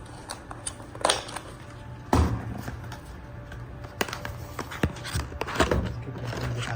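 Hands handling a boxed power bank and its packaging: irregular clicks, taps and knocks of cardboard and plastic over a low steady hum.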